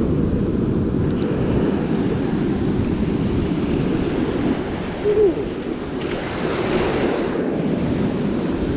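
Ocean surf washing steadily on the beach, with wind buffeting the microphone; a wave breaks a little louder about six seconds in. A brief pitched sound stands out about five seconds in.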